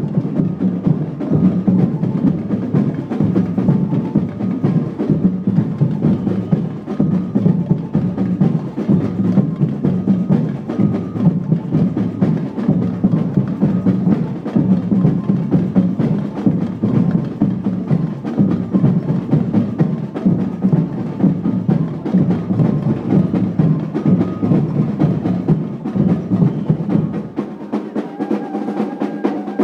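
Loud steel drums played fast by a band, a dense rhythm of struck strokes. About two seconds before the end the deep beat drops away and a few ringing notes carry on.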